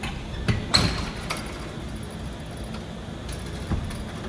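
A few sharp knocks and clanks, the loudest about three quarters of a second in, over a steady low hum.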